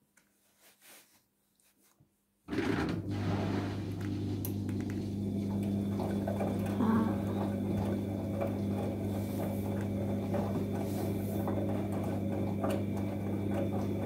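Bosch front-loading washing machine drum starting to turn about two and a half seconds in after a near-quiet pause: a sudden steady motor hum with wet laundry and water sloshing as the drum tumbles during the wash.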